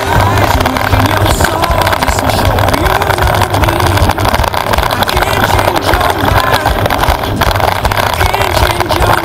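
Wind buffeting the microphone of a bike-mounted camera over the steady rattle and rumble of a Giant Trance 27.5 full-suspension mountain bike riding fast down a dirt forest trail.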